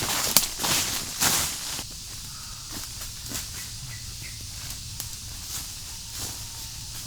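Footsteps through forest leaf litter and undergrowth, with dense rustling for about the first two seconds, then quieter, scattered steps and rustles.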